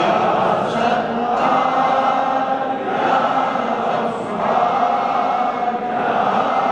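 A congregation chanting together in unison, many voices in short repeated phrases that rise and fall about every second and a half.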